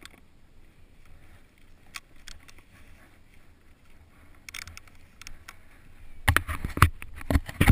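Wind rumbling on a GoPro Hero2's microphone, with a cluster of sharp knocks and scrapes in the last couple of seconds that become the loudest sounds.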